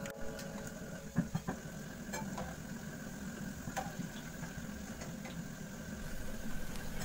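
Faint, steady low rumble of kitchen room noise, with a few light clicks and pops.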